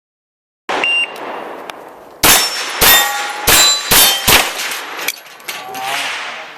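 Pistol shots striking steel targets, each hit followed by the ringing clang of the steel plate. The sound starts abruptly under a second in with one ringing hit, then five shots come about half a second apart in the middle, with ringing dying away near the end.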